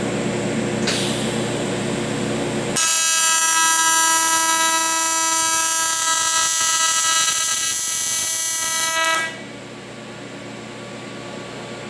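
AC TIG welding arc on aluminum sheet, tack welding an intake runner to its base plate: a steady, high-pitched electric buzz. It starts about three seconds in after a short hiss and stops about nine seconds in.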